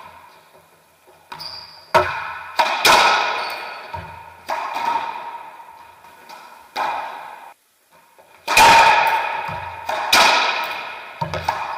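Racquetball rally: about eight sharp cracks of the ball off racquets and the court walls, each ringing on in the enclosed court's echo.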